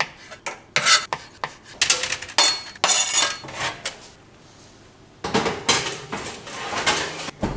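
A kitchen knife cutting through halloumi and knocking on a plastic cutting board, a run of short sharp knocks and scrapes. About five seconds in, a longer rough scraping clatter as a baking tray is put into the oven.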